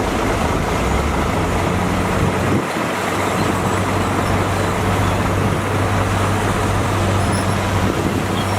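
Heavy diesel earthmoving machinery running steadily with a constant low engine hum, the low rumble dipping briefly about two and a half seconds in.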